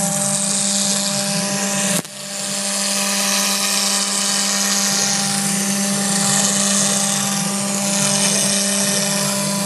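Huanyang VFD spindle of a CNC router running at speed, its bit milling through clear polycarbonate sheet: a steady pitched hum with a cutting hiss over it. A click and a brief drop in level about two seconds in.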